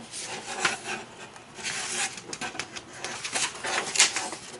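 Pages of a paper instruction booklet being turned and handled, rustling and scraping, with a sharper snap of paper about four seconds in.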